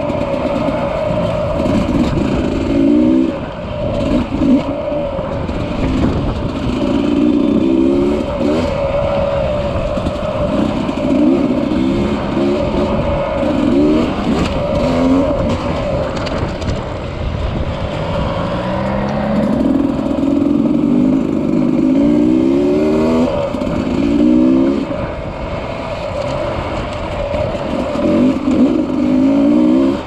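Dirt bike engine being ridden over rough trail, revving up and falling back again and again every second or two over a constant rumble.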